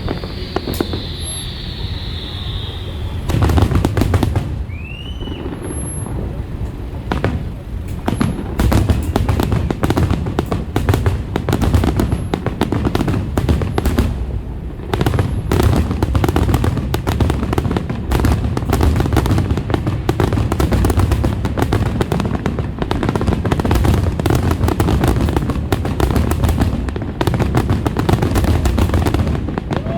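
Fireworks finale barrage: aerial shells bursting in rapid, overlapping booms and crackles, building to a near-continuous volley after the first few seconds. A short rising whistle comes about five seconds in.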